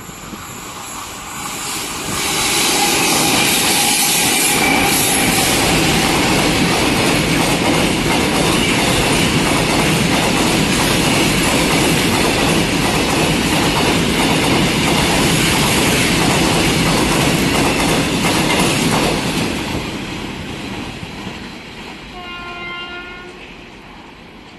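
Goods train of loaded covered wagons passing close by: the rumble and clatter of wheels on rail builds over the first two seconds, holds steady for about seventeen seconds, then fades as the train recedes. A train horn sounds briefly near the end.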